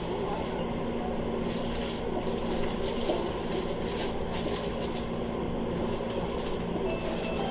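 Inside a Sanyo Electric Railway train car standing at a station platform: a steady low hum with a constant even drone and faint background murmur.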